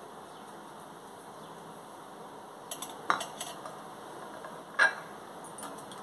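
A few short clinks and knocks of kitchen dishes and utensils being handled, the loudest about five seconds in, over a faint steady hiss.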